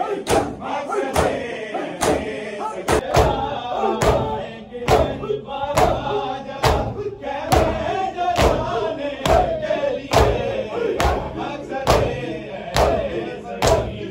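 Mourners beating their chests with open hands in unison (matam), a sharp slap about every 0.7 s, with a crowd chanting a noha over the beat.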